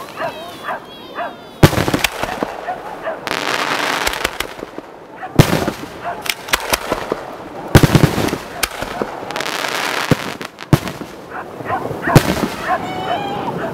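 Aerial firework shells bursting: several sharp bangs a couple of seconds apart, each followed by a spell of crackling hiss.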